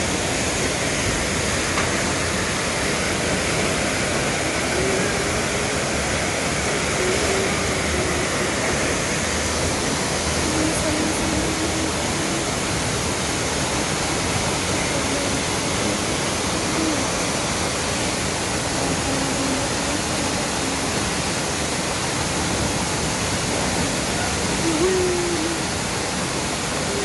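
Muddy flash-flood water cascading down a rock face and rushing across a flooded car park, a steady, loud rush of water.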